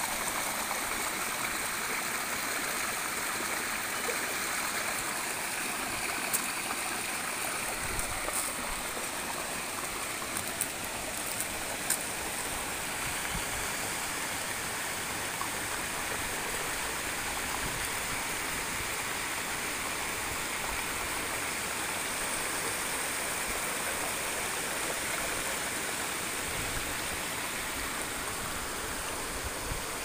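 Shallow rocky stream rushing and splashing over boulders and small cascades: a steady, even rush of water.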